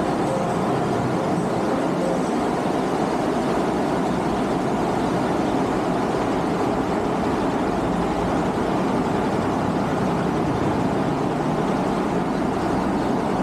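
Steady riding noise from a Honda PCX scooter on the move: wind rushing over the action-camera microphone, with road and engine noise beneath, unchanging throughout.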